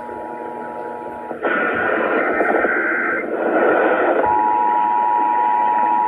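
Emergency Alert System attention signal, the steady two-tone alarm of 853 and 960 Hz, coming over an AM radio. About a second and a half in, the tone is cut off by a harsh, noisy burst lasting about three seconds. Then the steady two-tone comes back.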